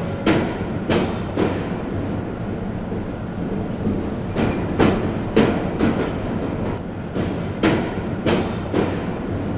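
Train running on the track: a steady rumble with sharp clacks of the wheels over rail joints, coming in clusters every few seconds.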